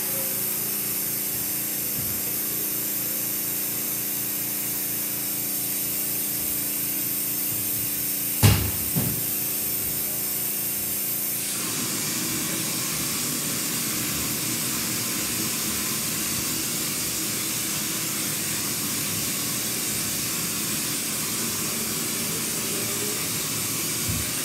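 Compressed air hissing steadily from a texture hopper gun spraying popcorn ceiling texture. Two sharp knocks come about eight seconds in, and the hiss changes texture about halfway through, when the spraying onto the ceiling begins.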